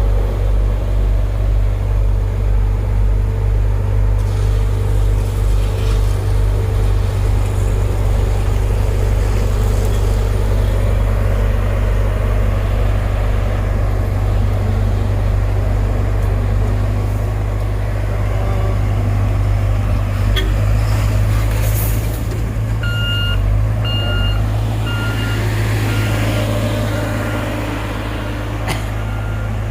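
Heavy diesel road-works machinery running with a steady deep rumble. From about three-quarters of the way in, a reversing alarm beeps repeatedly, about twice a second: a machine backing up.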